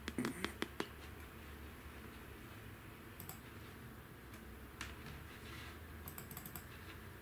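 Computer keyboard keys clicking: a quick run of about five sharp presses right at the start, then a few softer scattered clicks, over a steady low hum.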